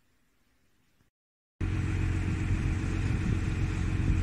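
Near silence, then a heavy diesel engine cuts in abruptly about a second and a half in, running steadily with a deep low hum.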